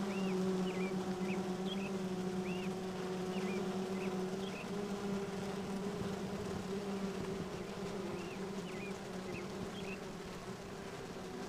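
A dense cluster of honeybees humming steadily, a low even drone. It is the colony's excitement as the bees gather on a newly introduced caged queen, some fanning their wings. Short high chirps sound now and then over the hum.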